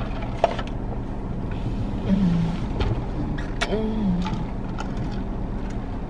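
Steady low hum of an idling car inside the cabin, with two short closed-mouth 'mmm' moans of someone savouring a drink about two and four seconds in, and a couple of light clicks.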